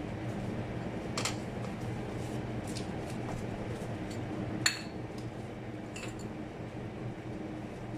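A few sharp clinks of a metal spoon and utensils against a plate, three in all, the loudest about halfway through, over the steady hum of a kitchen fan.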